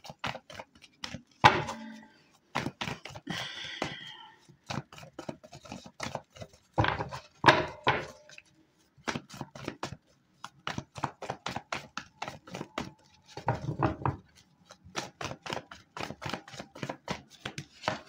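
A deck of tarot cards shuffled by hand: a long run of quick, irregular slaps and taps of the cards.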